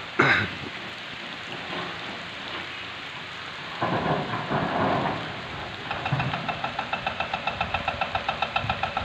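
Steady rain falling, with a sharp knock just after the start and a louder rush of noise about four seconds in. From about six seconds an engine comes in, running with a slow, even knock of about four beats a second.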